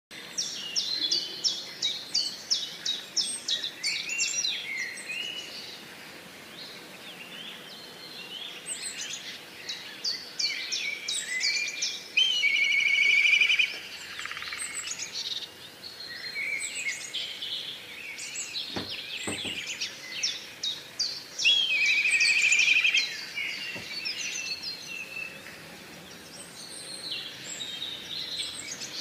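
Songbirds singing and calling: many quick, high chirps and whistled phrases, with a loud, buzzy trill twice.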